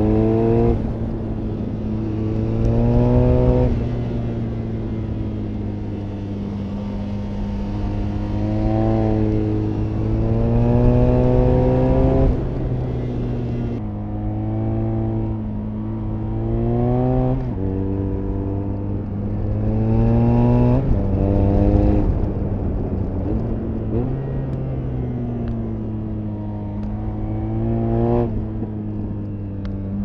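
BMW R nineT's 1170 cc air/oil-cooled boxer twin under way, accelerating again and again. Its note climbs in about eight rising sweeps and drops back sharply between them.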